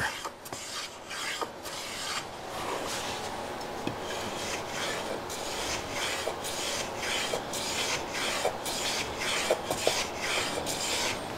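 Small hand plane cutting a 45-degree chamfer along a wooden edge. The blade shaves the wood in quick repeated strokes, about two a second.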